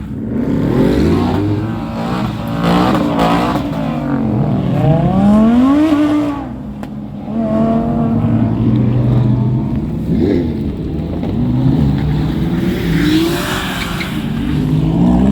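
Car engines revving hard, the pitch climbing and falling again several times as the cars accelerate.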